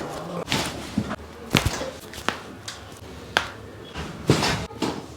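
Chiropractic adjustment: a series of sharp cracks and knocks, irregularly spaced, about eight or more in five seconds, as the body is manipulated, with one heavier knock about four seconds in.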